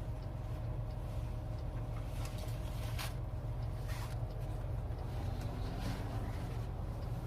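Steady low rumble inside a car's cabin, with a couple of brief clicks about three and four seconds in.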